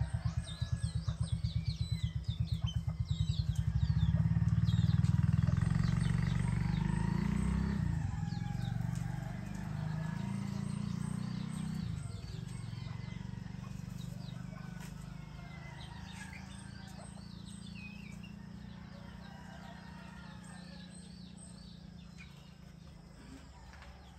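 A motor engine running low and steady, with a fast pulse at first. It is loudest about five seconds in, drops in pitch near eight seconds, then slowly fades away. Small birds chirp and twitter throughout.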